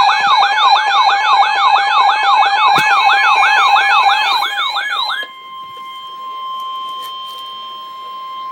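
Emergency alert siren sweeping quickly up and down, about four sweeps a second, for about five seconds. It then cuts to a quieter, single steady alert tone that opens an Emergency Alert System severe thunderstorm warning.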